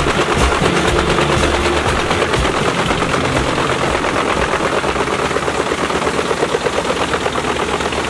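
Pezzolato PTH 1200/1000 drum wood chipper chipping whole logs, its drum knives cutting the wood in a steady, rapid crackling clatter.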